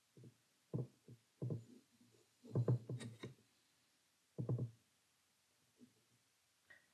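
A handful of soft, low knocks and thumps at irregular intervals, with one sharper click near the middle.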